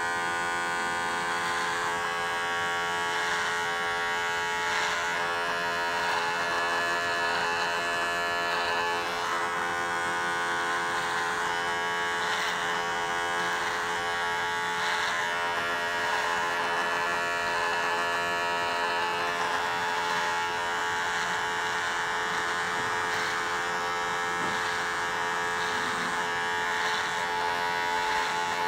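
Electric hair trimmer running with a steady buzzing hum, its blade cutting lines of a hair-tattoo design close to the scalp.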